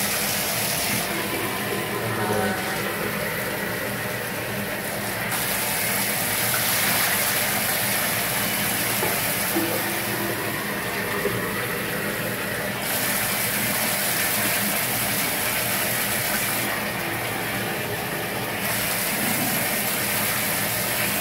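Water running and splashing steadily into a bathtub as a dog is rinsed, growing hissier for a few long stretches.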